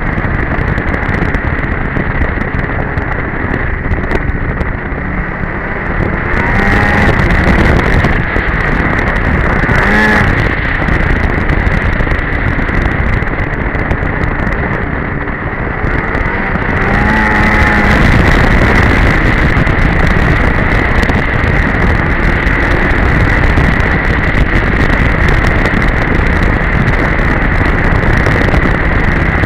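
Polaris Edge two-stroke snowmobile running under way. The engine note rises and gets louder as it speeds up about seven seconds in and again around seventeen seconds.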